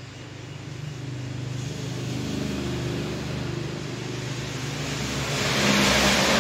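A motor vehicle's engine hum growing steadily louder as it approaches, loudest near the end with a rising hiss.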